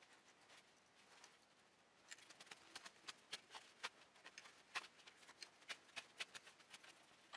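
Faint, irregular clicking and crunching of a steel tap being turned by hand in a steel part, a few sharp ticks a second, starting about two seconds in.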